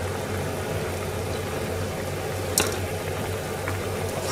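Soup simmering in an aluminium saucepan over a steady low hum, with one sharp clink of the stirring spoon against the pan about two and a half seconds in.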